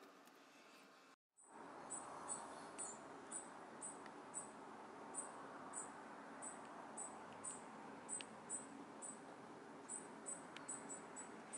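Outdoor ambience: a faint steady hush, with a short, high chirp repeating irregularly about twice a second. The audio drops out briefly about a second in, then the chirping starts.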